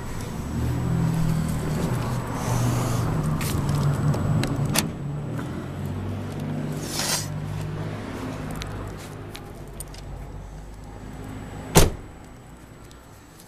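A 1994 Cadillac DeVille's door shut with one sharp bang about twelve seconds in, the loudest sound. Before it a low, uneven hum from the car, strongest in the first half, with some handling rustle.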